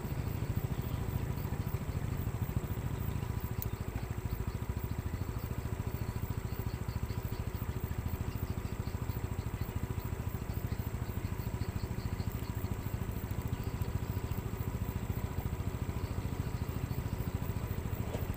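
Caterpillar 120H motor grader's diesel engine running steadily as the grader works forward with its blade down, levelling a gravel road.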